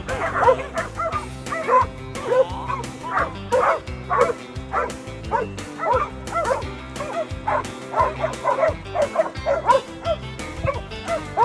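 Dogs yipping and barking excitedly in many short calls, over background country music with a steady beat.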